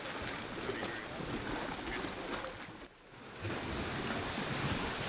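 Outdoor ambience of lake waves and wind, with wind buffeting the microphone; the sound dips briefly about three seconds in.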